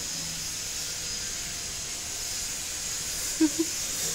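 Steady high hiss, with two short loud sounds close together about three and a half seconds in.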